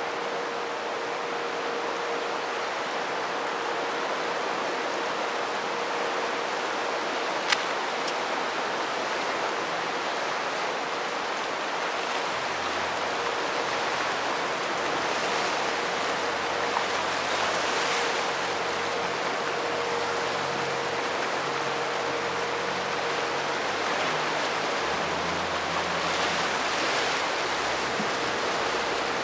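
Rushing, churning water of a dam tailrace as the gates are opened wide: a steady noise of turbulent water. A faint steady hum runs under it, a single sharp click comes about seven and a half seconds in, and a low hum joins about twelve seconds in.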